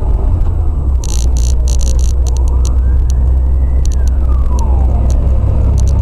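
Loud, steady low rumble of a vehicle, with an emergency-vehicle siren wailing under it: one slow rise in pitch, then a fall. A cluster of sharp ticks about a second in.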